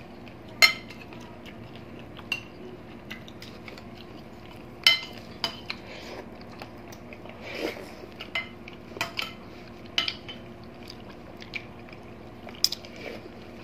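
Metal spoons clinking and scraping against glass bowls as soup is scooped up, a sharp click every second or two, with softer eating sounds between.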